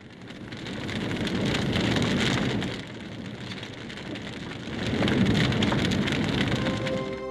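Large fire crackling and rushing, swelling up about two seconds in and again about five seconds in.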